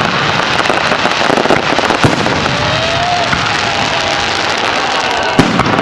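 Fireworks display: dense, continuous crackling of bursting shells, with a sharper bang about two seconds in and another near the end.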